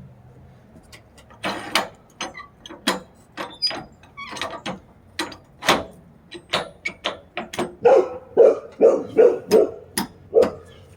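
Dog barking repeatedly in short sharp barks, scattered at first and then louder and quicker, about two a second, near the end.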